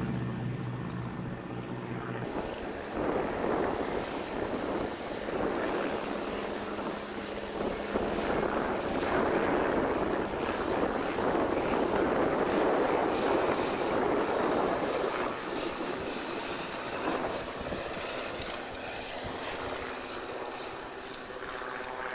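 De Havilland Tiger Moth biplane engines and propellers. A steady engine drone gives way, after a cut about two seconds in, to a louder rush of engine and propeller noise that swells to a peak midway and then fades as an aircraft passes.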